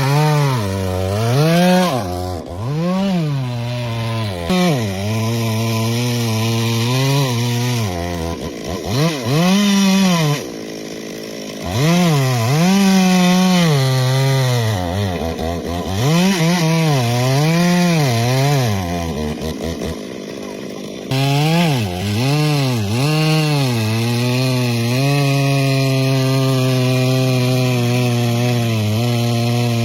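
Two-stroke chainsaw revving up and down again and again, with stretches where the engine holds at a steadier, lower pitch as it cuts into wood. The engine drops back to a lower idle twice, about a third of the way through and again past the middle.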